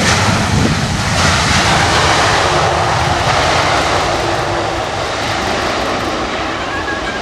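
Airliner's engines running loud as it passes close, loudest in the first couple of seconds and then slowly fading.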